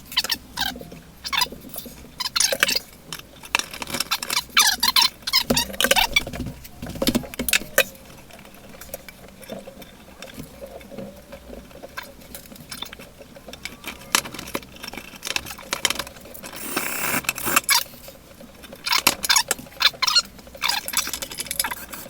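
Small metal hardware and hand tools being handled while working on a light-fixture electrical box: quick clicks, scrapes and rattles, with one longer rasping scrape about three quarters of the way through.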